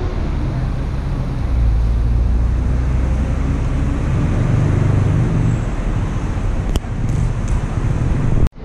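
Road traffic on a busy city street: a steady low rumble of passing cars and buses.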